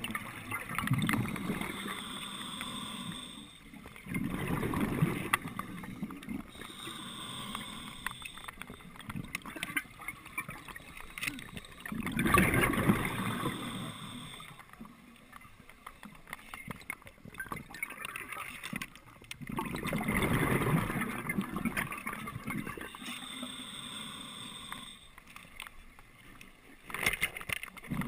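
Scuba diver breathing underwater through a regulator: hissing inhales alternate with bubbling exhales that come every few seconds, several breaths in all.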